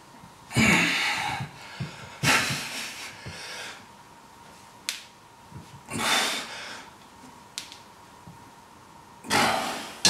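A lifter breathing out forcefully in four hard breaths, about two to three seconds apart, one with each rep of a narrow-grip barbell bench press. A few faint sharp clicks fall between the breaths.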